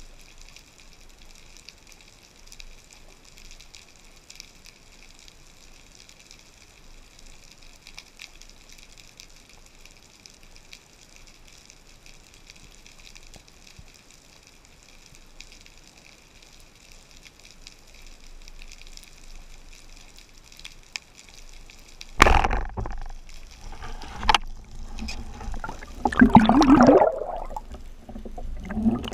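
Underwater sound picked up by a camera in its housing: a faint steady hiss for most of the time, then, about three-quarters of the way through, loud irregular rushing and gurgling of water as the camera comes up near the surface beside a diver.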